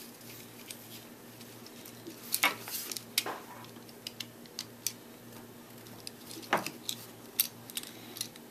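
Scattered light clicks and taps of small robot-arm kit parts and a screw being handled and fitted together by hand, a few sharper clacks among them, over a steady low hum.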